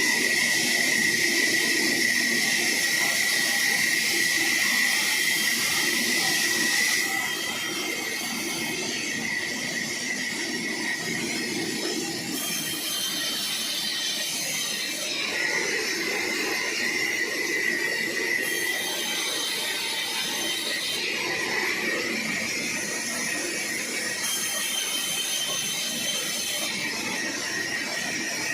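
Sawmill saw cutting through a large log: a steady hissing whine with a high squeal, dropping in level about seven seconds in, then short high squeals every few seconds.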